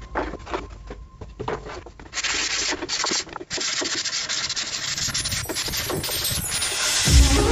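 Hand-sanding the edge of a plywood panel: a dense, rasping scrub that starts about two seconds in and keeps going, with a few light knocks before it.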